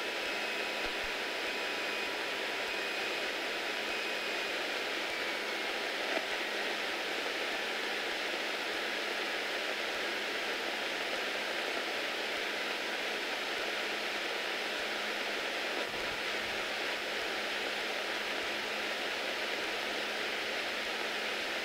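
Cabin noise of a Beechcraft Bonanza F33A during the landing on short final and the rollout, heard as a steady, even hiss with no clear engine note. A small bump in the level comes about six seconds in.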